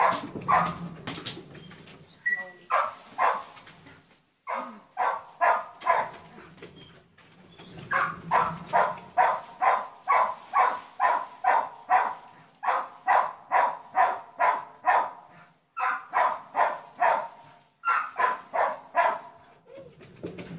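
A dog barking over and over in quick runs of short barks, about two or three a second, with brief pauses between the runs.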